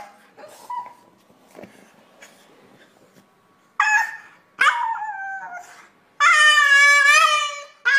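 French bulldog howling: a short call about four seconds in, a second call that falls in pitch, then a long wavering howl near the end.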